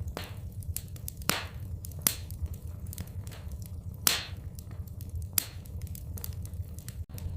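Wood fire in a fireplace crackling, with irregular sharp snaps and several louder pops, over a steady low rumble.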